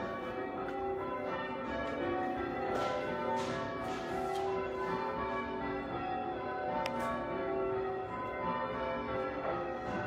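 Church bells being change-rung: one bell after another strikes at a different pitch in a steady round, each note ringing on and overlapping the next.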